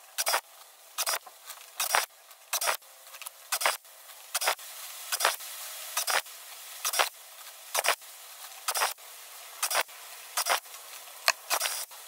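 Sharp clicks or snips repeating steadily, a little under one a second, as copper electrical cable is cut and stripped, with a faint hiss between them.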